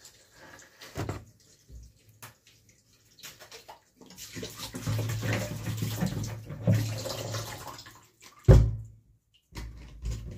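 Kitchen tap running into a stainless-steel sink, with uneven splashing as hands work under the stream. A single sharp knock comes about eight and a half seconds in, the loudest sound.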